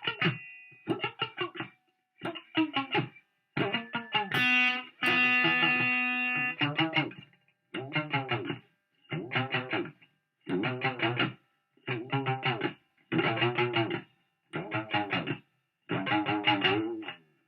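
Electric guitar played through a wah pedal in short stabs of about a second each, with silent gaps between them and the tone sweeping up and down within each stab. One note is held for about two seconds early on.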